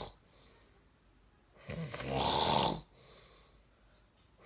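A man snoring: one loud snore about one and a half seconds in, lasting about a second, with a low buzz, then a quieter breath out.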